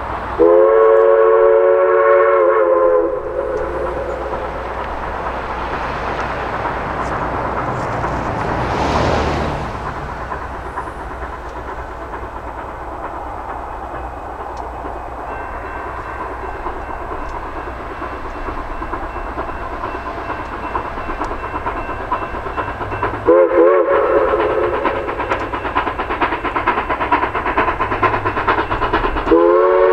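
Steam locomotive whistle blowing a long blast of several notes at once, then the steady noise of the running train. A shorter whistle blast comes about 23 seconds in and another starts near the end, with quick regular beats from the train in the later part.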